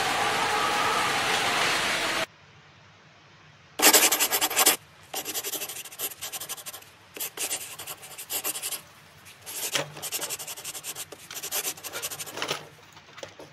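Background music that cuts off suddenly about two seconds in. After a short pause, plastic toy vehicles scrape and rub against each other and the concrete floor in a run of short, grainy bursts as they are pushed by hand.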